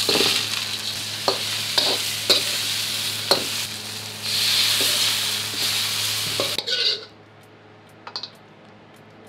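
Crab pieces and chopped vegetables sizzling loudly in a hot wok over a gas flame as they are stir-fried, with several sharp knocks of utensils against the wok. Sauce poured in about four seconds in sets off a fresh surge of sizzling; the sizzling cuts off suddenly about seven seconds in.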